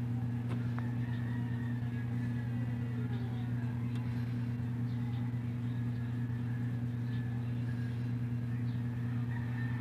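A steady low mechanical hum that holds one unchanging pitch throughout, like an engine or motor running at constant speed, with faint voices in the background.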